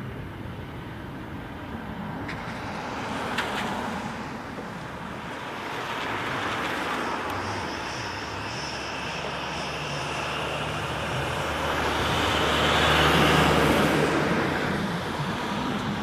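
Road traffic passing close by, each vehicle swelling up and fading away. The loudest pass, about thirteen seconds in, is a van, over the low steady hum of an engine.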